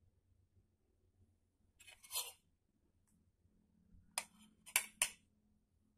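Faint handling noises: a short scraping rustle about two seconds in, then three sharp clicks or taps near the end, over a low hum.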